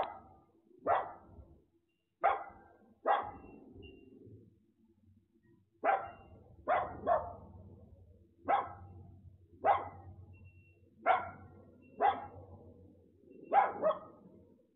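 Small dog barking repeatedly, roughly one bark a second with a few quick double barks.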